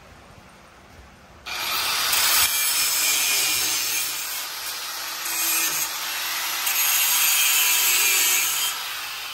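A small handheld cut-off tool starts about a second and a half in, its abrasive wheel cutting into the steel of a step notch with a steady high grinding hiss that swells and eases as it bites.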